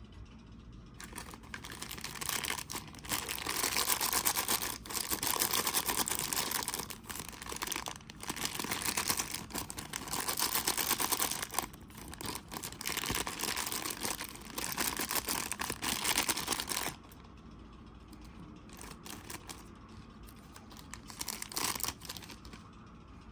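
Crinkly toy packaging being torn and crumpled open by hand, in long stretches with short pauses, then a few quieter rustles and clicks near the end.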